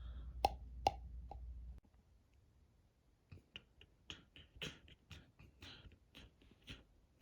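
Two sharp clicks, then after a low hum cuts off about two seconds in, a scatter of light, irregular clicks and taps.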